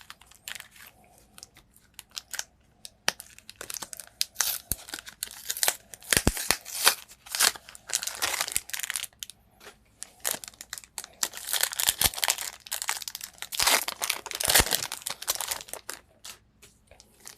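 Pokémon trading card booster pack's foil wrapper being torn open and crinkled by hand, in irregular crackling bursts with sharp clicks.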